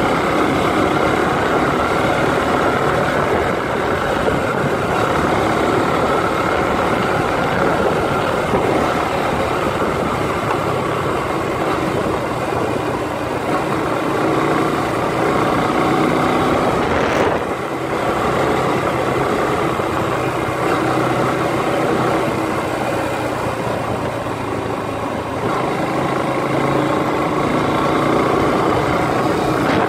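Motorcycle engine running steadily while riding, its pitch drifting up and down with speed. There is a brief dip in level a little past halfway.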